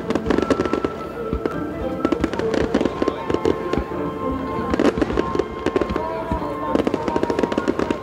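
Fireworks shells bursting in rapid succession, with many bangs and crackling reports. Music plays underneath, with long held notes.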